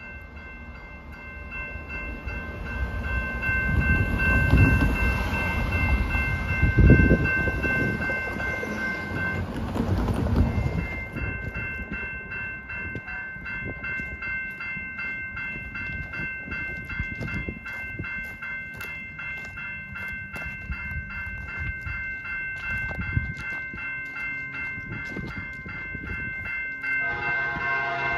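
Grade-crossing warning bell ringing steadily, with a loud deep rumble in the first ten seconds. Near the end an approaching train's horn starts sounding, several notes at once.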